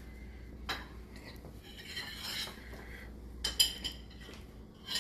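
Light metallic clinking and rattling: a sharp clink a little under a second in, a jangling rattle around two seconds in, the loudest clink with a brief ring about three and a half seconds in, and another clink near the end.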